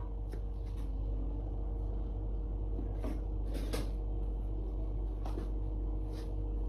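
Steady low hum with about six light clicks and knocks scattered through it, typical of objects being handled.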